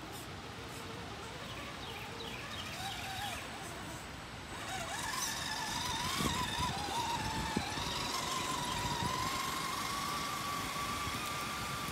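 Redcat Gen8 V2 RC crawler's electric motor and geared drivetrain whining as it crawls up a steep dirt side hill. The whine grows louder about five seconds in, wavers upward and then holds steady, with a few knocks of the tyres against roots.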